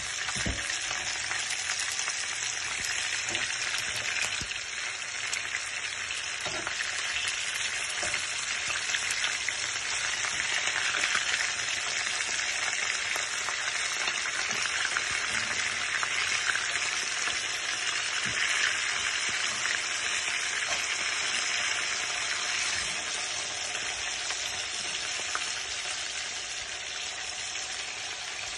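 Cross-cut beef short ribs frying in hot oil in a frying pan: a steady, dense sizzle and crackle as the meat browns, with a few faint ticks.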